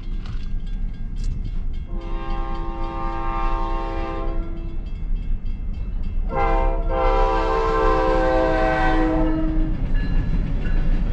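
Freight locomotive's air horn sounding two long blasts as the train nears a grade crossing, the second blast louder, over a steady low rumble.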